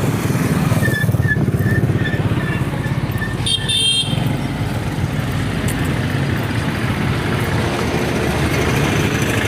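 Street traffic: motor vehicles running and passing with a steady low rumble, with a brief high-pitched sound about three and a half seconds in.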